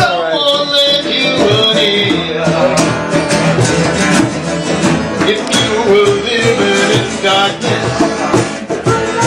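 A man singing, with guitar accompaniment.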